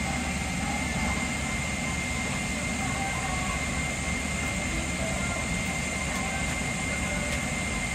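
Steady, even cabin noise inside a Boeing 777-300ER airliner, with a thin high whistle held throughout.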